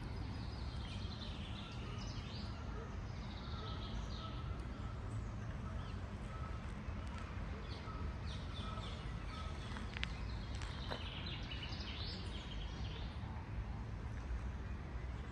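Street ambience: a steady low rumble with birds chirping on and off over it.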